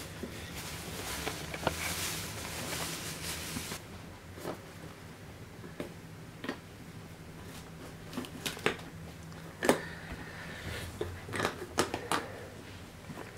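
An Airedale puppy playing with a bunch of tied rubber balloons on a puppy pad and wooden floor: rustling for the first few seconds, then scattered knocks and taps as the balloons are pushed and bumped about, the loudest about ten seconds in.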